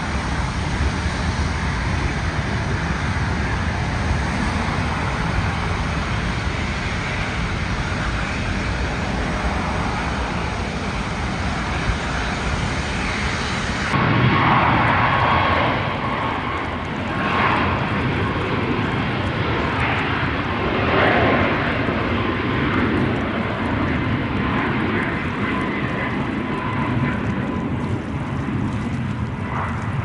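Jet airliner engines running as the plane taxis, with road traffic passing close in front. About halfway through it changes abruptly to a Boeing 737 rolling down the runway: a steady engine whine under swelling jet roar.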